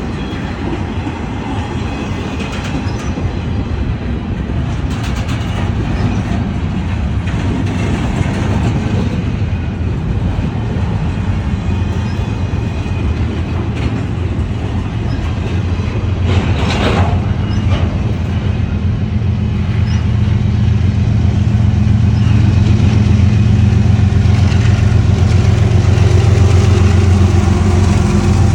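Slow-moving freight train cars rolling past, with clattering wheels and brief wheel squeal. From about two-thirds of the way in, a steady low engine hum builds louder.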